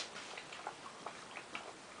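Puppies eating dry kibble from a clear dish: irregular clicking and crunching, several a second, as the pieces knock against the dish and break between their teeth.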